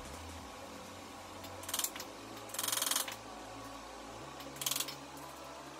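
Hands working on flat-pack furniture parts: three short scraping bursts about a second apart, the middle one longest and made of a fast run of tiny clicks, over a low steady hum.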